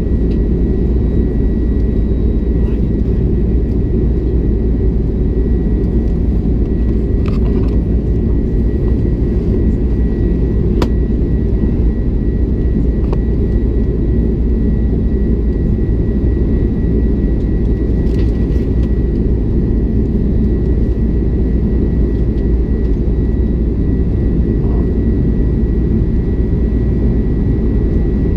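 Jet airliner cabin noise in flight: a loud, even rumble of the engines and airflow, with a thin steady high whine above it.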